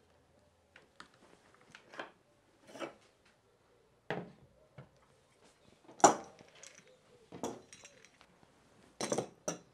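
Scattered clicks, knocks and clatter of a circular saw and the plastic and metal parts of a track-saw guide base being handled and set down on a plywood workbench, the loudest knock about six seconds in.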